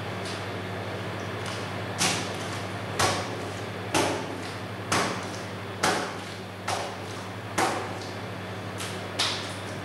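A mass of fresh butter slapped and pressed down on a wooden table as it is worked by hand, about once a second from two seconds in, over a steady low hum.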